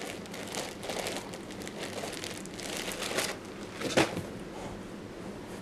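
A clear plastic bag crinkling as it is handled, with irregular rustles and one louder, sharp sound about four seconds in.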